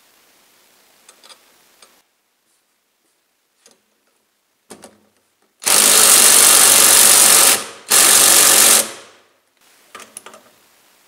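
Cordless impact wrench running the flywheel nut down on a Predator 212 engine, in two runs: one of about two seconds starting about halfway through, then after a brief pause a shorter one of about a second. Before it there are a few light clicks of parts being handled.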